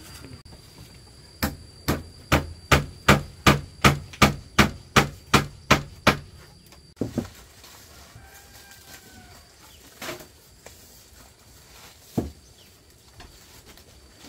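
About a dozen quick, evenly spaced blows of a hand tool on wood, roughly two and a half a second, stopping after about six seconds; a few single knocks follow. A chicken clucks faintly in the middle.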